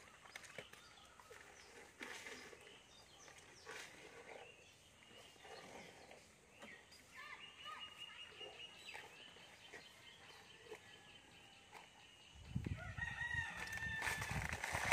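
A rooster crowing in the background, one long held call about halfway through and another near the end, over faint crackling and rustling of banana stalks as an Asian elephant feeds. A louder spell of low noise comes in for the last couple of seconds.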